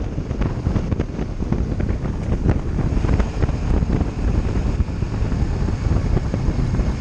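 Wind buffeting the microphone of a motorcycle rider's camera at road speed, a steady low rush with constant flutter and road noise underneath.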